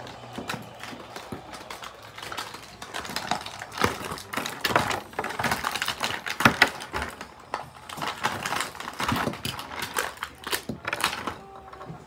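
Plastic toy packaging being wrestled open by hand: irregular crinkling, crackling and clicking of a clear blister pack and card box, busiest in the middle stretch.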